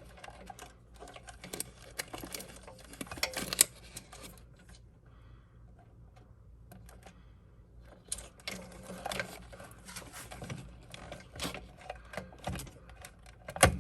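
Small clicks, taps and rustles of parts being handled and pushed into place while a replacement refrigerator inverter board is fitted. The clicks come in busy clusters, with a quieter stretch in the middle.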